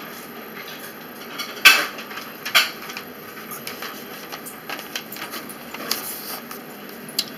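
Household handling noises: a sharp knock, another about a second later, then scattered small clicks and clatters.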